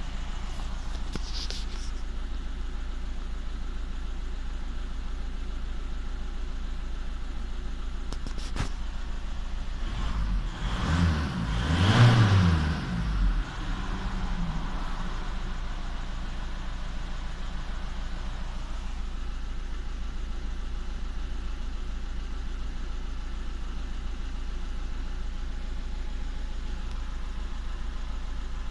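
VW Touran 1.9 TDI four-cylinder diesel engine idling with a cylinder 3 misfire, blipped once about ten seconds in so its pitch rises and falls, then settling back to idle.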